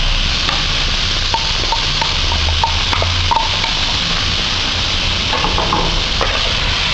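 Seasoned shrimp sizzling as they are sautéed in a hot pan: a steady frying hiss, with small ticks and scrapes from being stirred.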